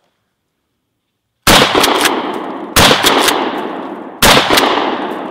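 A 12-gauge pump-action shotgun fires three rounds of #4 buckshot, about a second and a half apart, each loud blast fading out over more than a second.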